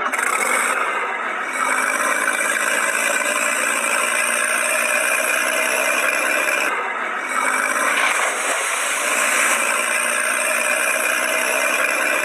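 Tractor engine running steadily, thin-sounding with no deep rumble.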